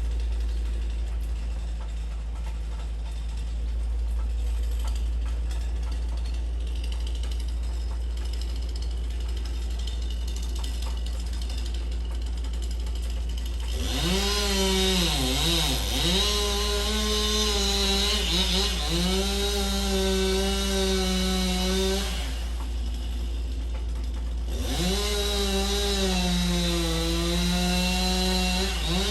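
A chainsaw cutting down a tree. After a steady low rumble, the saw revs up about halfway in and dips in pitch twice as it bites, then runs at high speed. It cuts off, then revs up again a couple of seconds later and keeps running.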